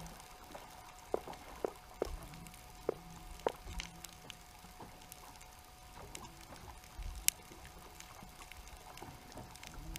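Underwater ambience heard through a waterproof camera housing: a steady faint hum with scattered sharp clicks and knocks, most of them between about one and four seconds in, and one more, sharper click about seven seconds in.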